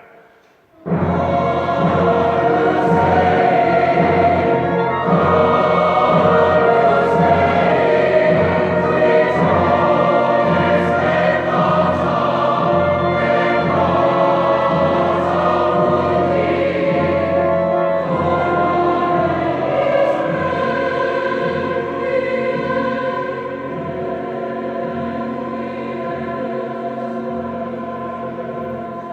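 Choir singing sustained chords, coming in suddenly about a second in and dropping somewhat in loudness after about 23 s.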